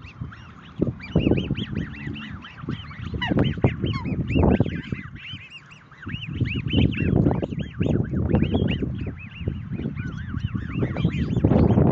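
Black swan cygnets calling together in many short, high, rising-and-falling peeps that overlap almost without a break, over irregular low rumbling.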